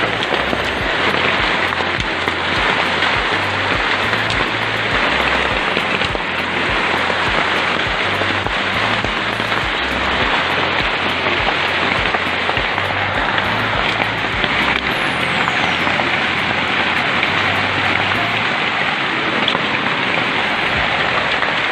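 Hailstorm: heavy rain mixed with hailstones falling, a dense steady patter that does not let up.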